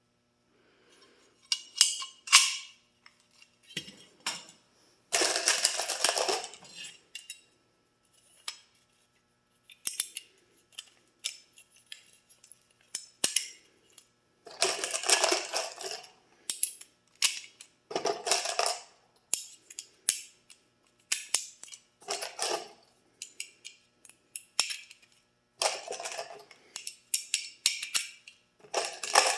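Milwaukee M12 cordless rivet tool run in repeated short bursts of about a second each, with sharp clicks and metallic clinks in between.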